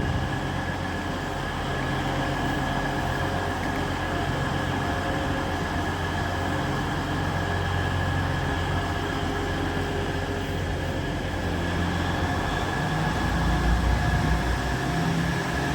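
East Midlands Railway diesel intercity train pulling out of the platform: a steady engine drone with a steady high whine above it, and a deeper rumble swelling near the end.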